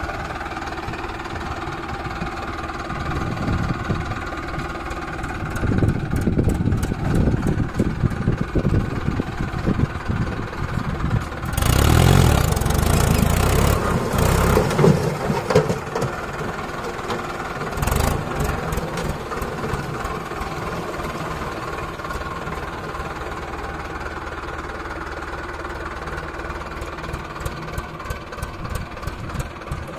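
Heavy diesel vehicle engine running steadily, working harder through the middle. The loudest stretch is a noisy surge about twelve seconds in, and a short sharp noise comes near eighteen seconds.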